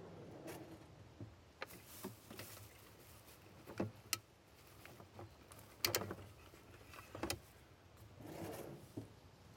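Wood campfire crackling: scattered sharp pops and cracks at irregular intervals, with a few soft rustles between them.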